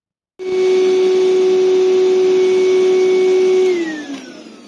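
Woodturning lathe motor running at speed with a steady whine, then switched off about three and a half seconds in, its pitch falling as it winds down.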